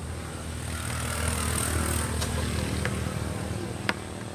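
A vehicle engine running with a steady low hum, swelling a little in the middle. Three short sharp clicks come in the second half, the last and loudest near the end.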